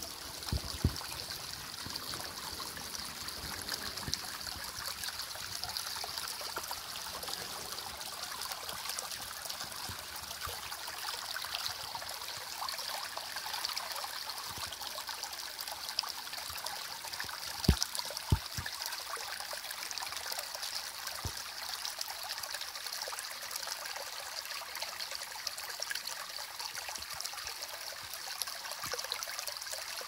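Shallow mountain stream trickling over rocks, a steady hiss of running water. A few brief low bumps stand out, the loudest two close together a little past the middle.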